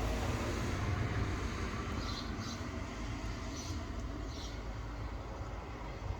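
Steady soft rain with a low rumble underneath, joined a few times by brief high chirps.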